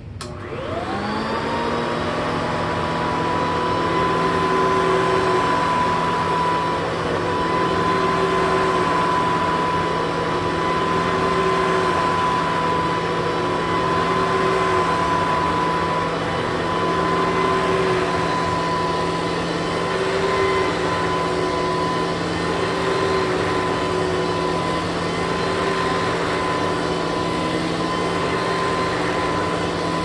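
Hoover Commercial C1125 upright vacuum switched on with a click, its motor spinning up to a steady high whine within about a second. It then runs steadily, with a lower hum that swells and fades every couple of seconds as it is pushed back and forth over carpet.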